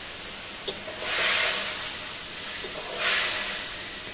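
Boiling curry gravy in a kadai hissing sharply as koi fish pieces go in, in two surges, about a second in and again near the end, each fading off; a light tap of the spatula comes just before the first.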